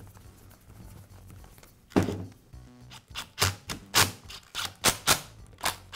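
Cordless drill/driver driving screws into the saw's plastic handle housing: a run of sharp clicks, about three a second, starting about two seconds in.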